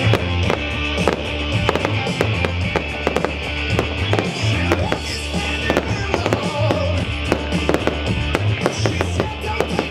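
Show fireworks going off in quick succession, many bangs and dense crackling from the bursting stars, over loud music with a steady pulsing beat.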